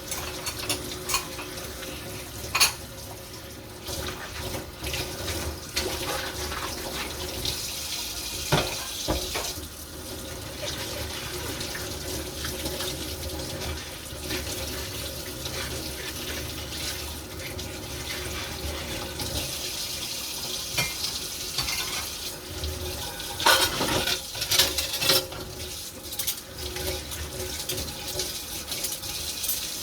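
Tap water running into a kitchen sink while dishes are washed by hand, with occasional clinks and clatters of dishes and pans, a cluster of them about three-quarters of the way through.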